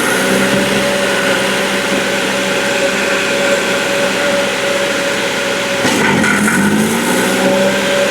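Stump grinder's engine running at high throttle while its cutting wheel grinds. About six seconds in, the engine's pitch sags and then climbs back, as when the wheel takes a heavier bite of the stump.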